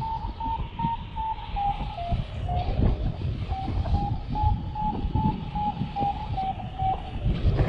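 Paragliding variometer beeping its climb tone, about two to three short beeps a second with a brief pause about a third of the way in; the beeps signal the glider climbing in a thermal. Wind rushes on the microphone underneath.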